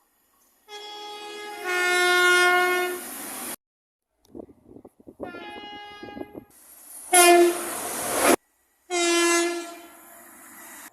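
Train horn sounded in four separate blasts, each starting and stopping suddenly with brief silent gaps between; the second is fainter, the third the loudest.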